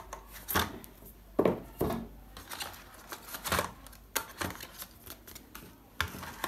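Hands handling a white cardboard smartphone box and its paper-card inner trays: scattered light knocks, scrapes and rustles as the phone is lifted out and the accessory compartment opened.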